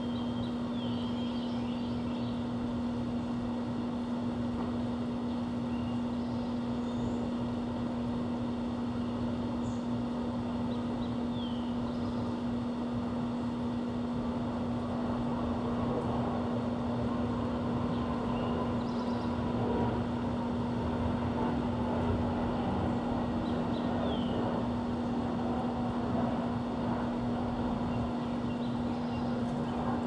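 Steady mechanical drone with a constant low hum underneath, and a few faint, short bird chirps that fall in pitch now and then.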